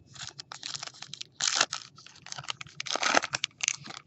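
A foil trading-card pack wrapper being torn open and crinkled: a run of crackling rustles, with two louder bursts about a second and a half in and about three seconds in.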